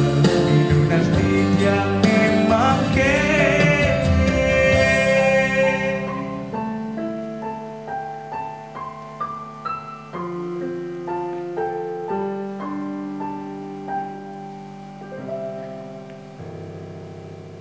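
A man singing the last line of a song over full band accompaniment with drums, which stops about six seconds in; then a piano plays a slow closing phrase of single notes over held chords, fading, and ends on a sustained final chord.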